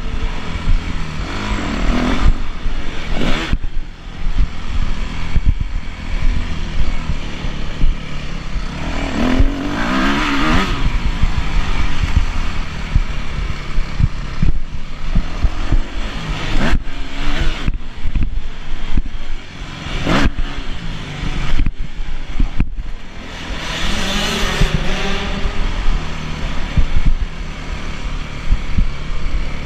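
Yamaha YZ250F's four-stroke single-cylinder motocross engine, heard from on board, revving up and down hard as the bike is ridden. The throttle is cut briefly several times, and there are strong rising revs about ten seconds in and again near the end.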